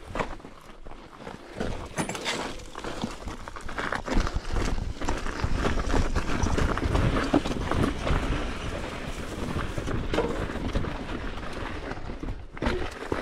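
Mountain bike riding fast over a rough, rutted dirt trail: tyres and frame knocking and clattering unevenly over rocks and ruts, with wind rumbling on the action-camera microphone, heaviest through the middle.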